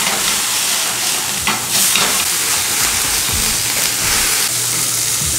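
A frying pan of mackerel being flambéed: a loud, steady hiss of sizzling and burning flame, with a few faint knocks.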